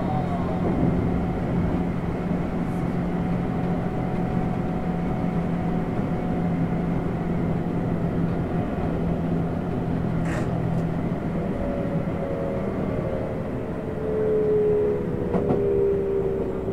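Tokyu 7700 series electric train running, with a steady rumble of wheels on rail and wind noise at the front cab. From about twelve seconds in, the traction motors' whine falls steadily in pitch as the train slows for the next station.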